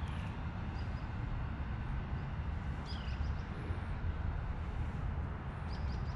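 Outdoor ambience: a steady low rumble, with a few short high bird chirps about one, three and six seconds in.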